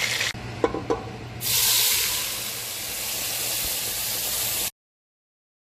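A few light clicks of a utensil or pan, then food sizzling loudly in hot oil. The sizzle starts suddenly about a second and a half in, holds steady, and cuts off abruptly near the end.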